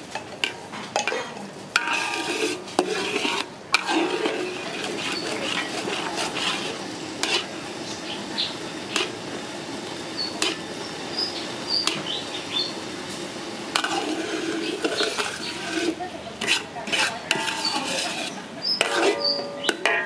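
Metal ladle stirring and scraping around a metal wok, with repeated sharp clinks of metal on metal over the steady sizzle of a bubbling brown sauce.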